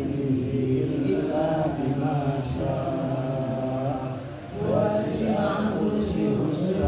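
A man's voice chanting Quran recitation in long, held melodic phrases, with a short pause for breath about four and a half seconds in.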